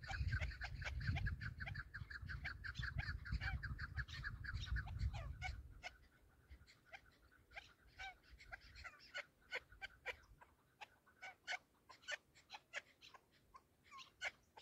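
Chukar partridges calling: a fast, even run of repeated sharp notes for about the first five seconds, then scattered single call notes. Wind rumbles on the microphone during the fast run and stops when it ends.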